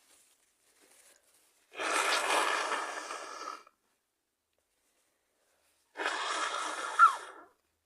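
A person with a cold sneezing twice: two breathy bursts of a second or two each, the second ending in a sharp, loud peak.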